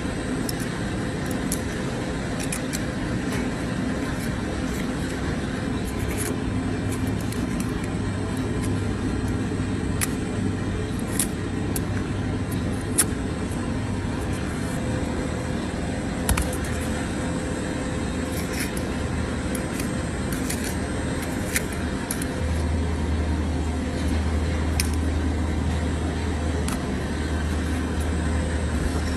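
Steady low machine rumble and hum, with occasional sharp clicks and scrapes of a hoof knife prying small rocks out of a cow's hoof sole.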